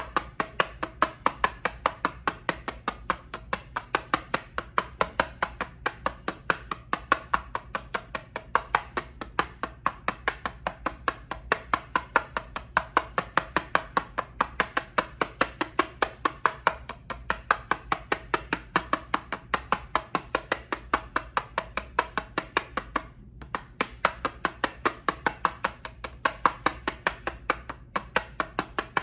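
Rhythmic tapping on an eyeshadow palette: sharp, even taps about three to four a second, with a brief pause about 23 seconds in.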